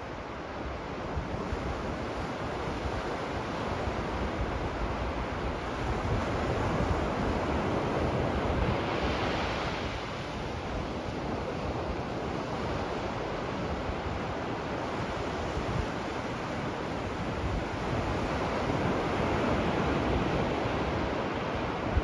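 Ocean surf washing onto a sandy beach: a steady hiss of breaking waves that swells louder twice, about a third of the way in and again near the end.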